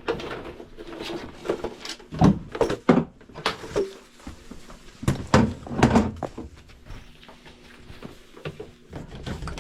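Irregular knocks and thuds of equipment being handled and set down, with a few louder thumps about two, three, five and six seconds in.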